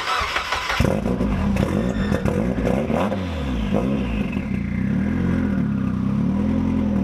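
Mazda Miata's turbocharged four-cylinder engine cranking briefly on the starter and catching less than a second in. The idle wavers at first, then settles into a steady idle with a slow rise and fall. This is a restart after a valve stem seal job, with the engine retimed and running on E85.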